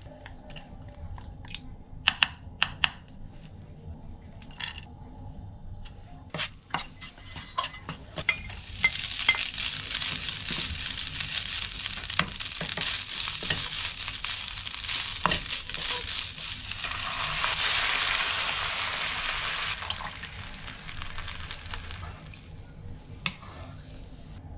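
A spoon taps and scrapes chili paste out of a small bowl into a nonstick frying pan with several sharp clicks. Then minced meat and chili paste sizzle in hot oil as they are stir-fried with a wooden spatula. The sizzle starts about eight seconds in, grows louder around seventeen seconds, and dies down after about twenty seconds.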